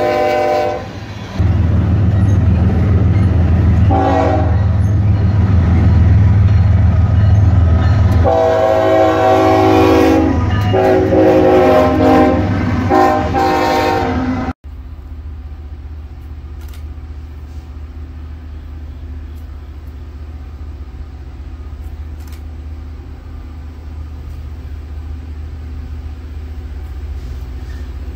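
Norfolk Southern diesel locomotives passing close with a heavy engine rumble, sounding several horn blasts: a short one at the start, a brief one about four seconds in, and a long, broken one from about eight seconds until halfway through. The sound then cuts to a quieter, steady low rumble from a Loram rail grinder approaching in the distance.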